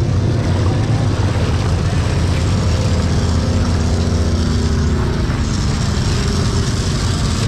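A side-by-side UTV's engine running steadily as it wades through deep muddy water, with water churning and sloshing along its side.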